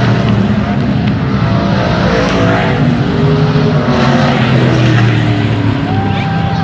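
Stock car engines running hard on a race track, several engine notes overlapping at different pitches.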